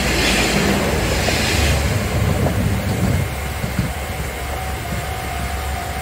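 KiHa 47 diesel railcar passing: wheels and underfloor diesel engine running past, the noise dropping away as the train clears about three seconds in.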